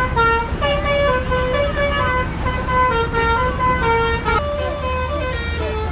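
Bus 'telolet' multi-tone horn playing a melody of held notes that step up and down in pitch every half second or so, over the steady low rumble of the bus's engine.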